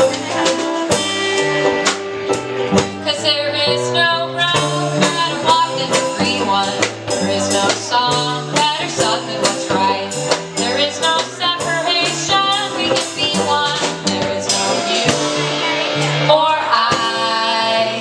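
Live folk band playing an instrumental passage between sung verses: strummed acoustic guitar and a drum kit keeping a steady beat, with saxophone carrying melodic lines.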